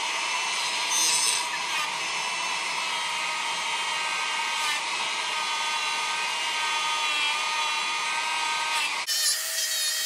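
Dremel rotary tool with a stainless steel wire brush wheel, spinning at speed and scrubbing old gasket material off the base of a chainsaw cylinder: a steady high whine over a scratchy rasp. About nine seconds in the rasp drops away and the motor keeps whining.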